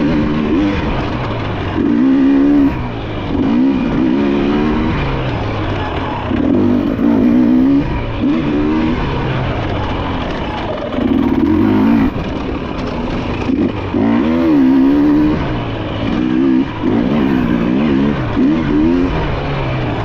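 Enduro dirt bike engine under hard riding, its pitch rising and falling in short surges every second or two as the throttle is opened and shut.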